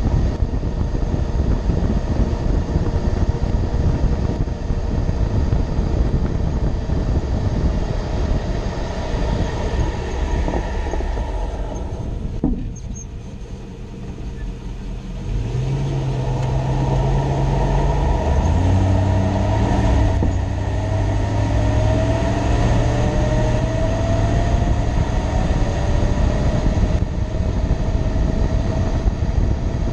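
Steady road and engine noise from a 2006 Toyota Tundra pickup on the move. It quiets for a few seconds around the middle, then steady low engine tones come in and higher tones rise, as when the truck pulls away and accelerates.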